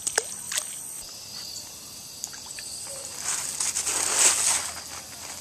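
Water splashing and sloshing for about a second and a half, starting about three seconds in, over a steady high chirring of insects. A few sharp clicks come near the start.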